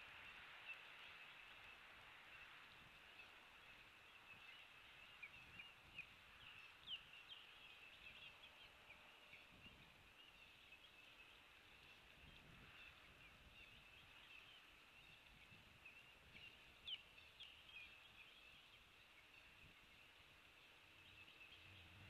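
Faint outdoor ambience: a steady high-pitched chorus of small chirps, with a couple of slightly louder chirps twice, about a third and three quarters of the way through.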